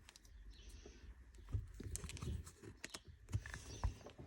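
Scattered light clicks and knocks of a replacement gear knob and its plastic parts being handled and pushed onto the gear lever.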